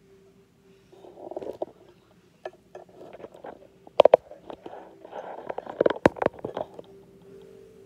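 Craft supplies being handled and set down on a covered table: scattered knocks and clicks, two loudest about four seconds in and again about six seconds in, with bouts of rustling. A faint steady hum sits underneath.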